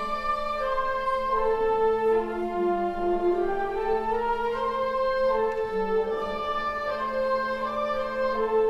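High school concert band playing sustained chords of woodwinds, brass and string bass, the notes held and changing about once a second.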